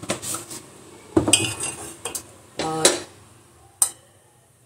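A metal spoon or ladle knocking and clinking against a cooking pan and kitchen containers, four or five separate clinks spread across a few seconds.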